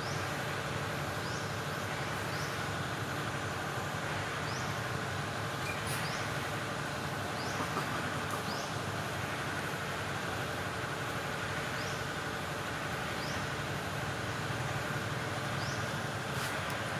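Steady outdoor forest background noise, an even hiss with no clear single source, with a faint short high chirp that rises in pitch and repeats about once every second or so.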